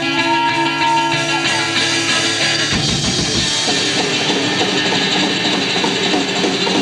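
Live instrumental music from a guitar-and-drums duo: held, ringing guitar notes at first, then about three seconds in the drums come in hard and the playing turns dense and fast.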